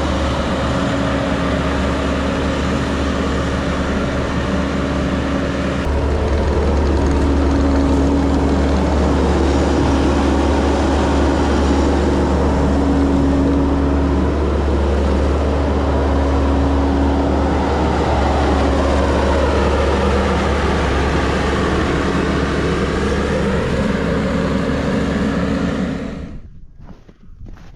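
Steady drone of an engine or motor running, with a low hum and a humming tone that comes and goes; it cuts off suddenly near the end, and a few footsteps follow.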